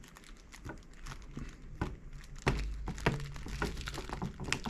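Small clicks and taps of a mains power-cord plug being fitted by hand into an electric fence energiser's power lead connector, with cable handling. A low rumble comes in about halfway through.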